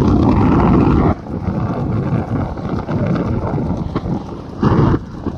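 Noisy roar of racing bullock carts and the motorbikes following them on the road, with hooves and engines mixed together. It is loudest for about the first second, with a shorter loud burst near the end.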